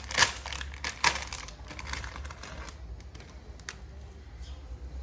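Gift packaging being handled and opened by hand: a quick run of crinkling, clicking rustles with two sharper snaps near the start and about a second in, then only a few faint rustles.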